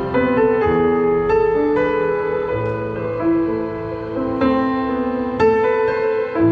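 Roland HP508 digital piano playing a slow melody over held chords, with new notes coming in about once a second.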